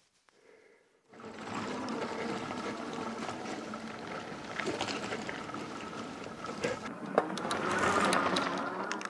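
Hub-drive electric bike with fat tyres riding over dry grass and dirt: a steady motor hum with tyre noise and small knocks. It starts about a second in and grows louder near the end as the bike passes close by.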